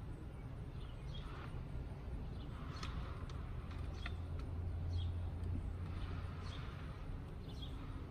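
Outdoor ambience: small birds chirping here and there over a low rumble that swells about five seconds in.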